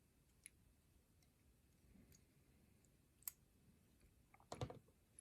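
Sparse, faint clicks of small metal lock parts being handled as a padlock is taken apart, with a quick cluster of clicks and a louder knock near the end.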